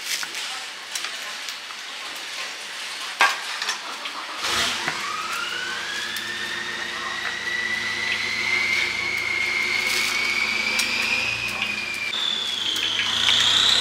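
A few sharp knife chops on a wooden chopping board, then a machine's whine with a low hum under it. The whine climbs slowly in pitch and steps up higher near the end.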